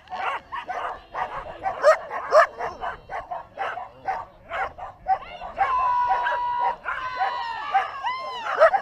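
Excited flyball dogs barking rapidly, several barks a second, with a long held whining cry and arching yelps in the second half.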